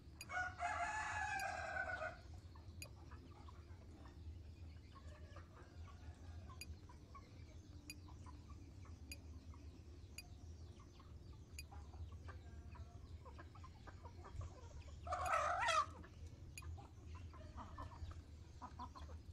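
Bantam rooster crowing: one short crow of about two seconds at the start, then a shorter, one-second call with a rising and falling pitch about fifteen seconds in. Faint clucks come between the two calls.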